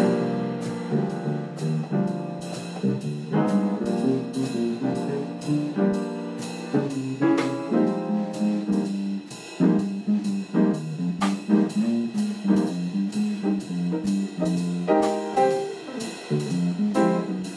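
Jazz band music: horns playing a melody over a drum kit keeping a steady beat.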